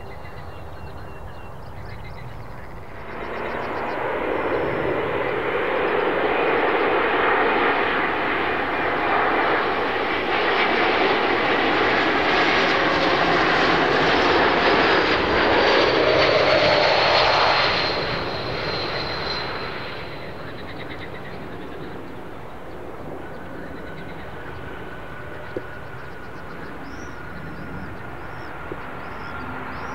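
Jet airliner's engines passing close, coming up suddenly about three seconds in and staying loud for some fifteen seconds before dropping away, with a high whine that slides down in pitch as it goes.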